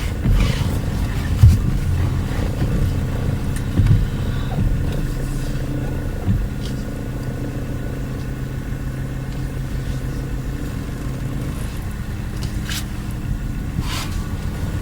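Peugeot 308's engine idling, a steady low hum, with a few brief knocks in the first few seconds and two short sharp sounds near the end.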